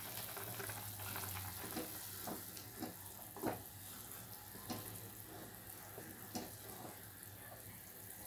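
Pan of hot and sour chicken soup boiling on high heat with a steady bubbling hiss, and a few soft knocks as a spatula stirs it.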